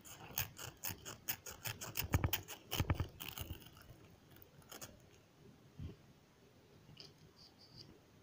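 A clear plastic bag crinkling as it is handled against the microphone: a quick run of crackles for the first three seconds or so, then only a few scattered crackles.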